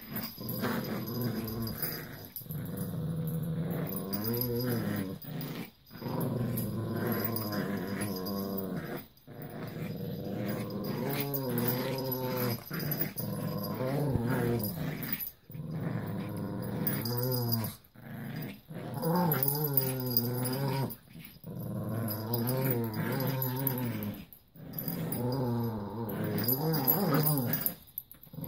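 Small dogs growling while playing tug of war over a toy, a playful tugging growl and not a fight. The growls rise and fall in pitch and come in long runs, broken by brief pauses every few seconds.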